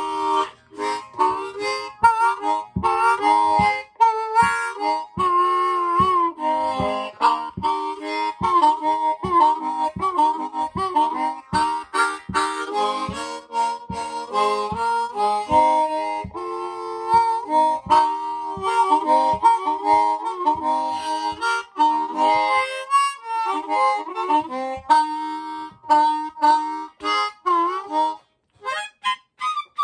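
Easttop ten-hole diatonic harmonica in A-flat (G#) being played with cupped hands: a fast run of short, repeated notes and chords with a few longer held notes, breaking off briefly near the end.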